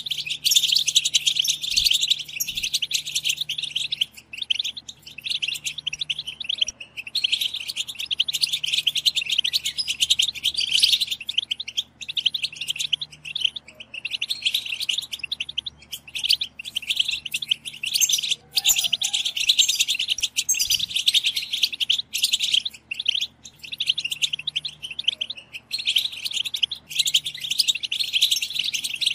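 A group of European goldfinches twittering in a dense, rapid chatter, the female-style 'batbata' chatter played to stimulate male goldfinches to sing. It comes in long runs broken by brief pauses.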